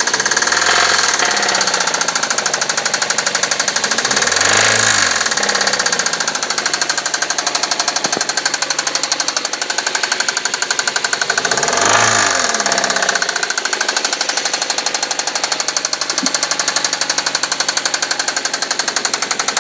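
Suzuki SX4 engine running with a fast, steady knock from inside the engine, revved up and back down twice, about four seconds in and again near twelve seconds.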